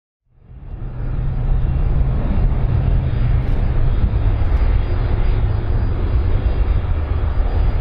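Twin turbofan engines of an Airbus A310-304 running as it rolls along the runway: a steady, loud jet noise with a deep rumble and hiss, fading in during the first second.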